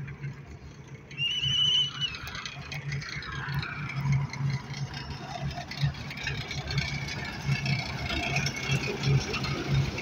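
Diesel engines of road machinery (a road roller and tractors) running steadily with a low, pulsing drone. A short warbling high tone sounds about a second in.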